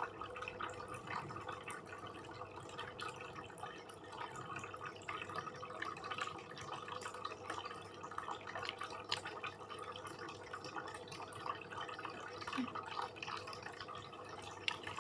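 Close-up wet chewing of beef satay: many small irregular mouth clicks and smacks over a faint steady hum.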